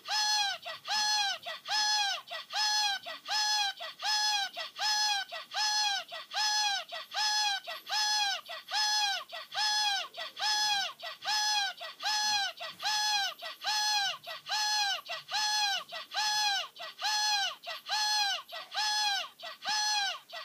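Funassyi plush mascot's push-button sound chip playing a high-pitched electronic call over and over, about two a second, each call rising then falling in pitch.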